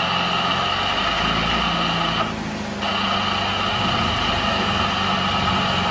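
Light aircraft's engine running with a continuous high-pitched warning tone over it, typical of a stall warning horn during a slow, short-field landing. The tone cuts out briefly a little over two seconds in, then sounds again.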